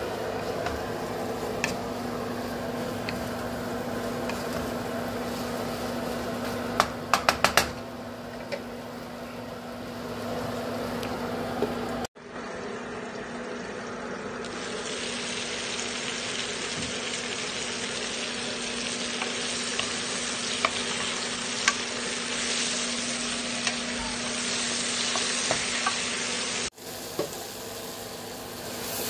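Vegetables frying in a pan with stirring, and a quick run of four sharp knocks about seven seconds in. Partway through, the frying turns into a brighter, louder hiss of sizzling peppers and mushrooms.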